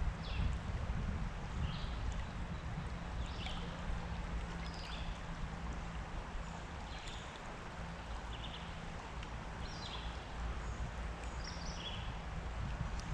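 Creek water flowing and rippling, with a low rumble underneath. Short high bird chirps sound every second or so above the water.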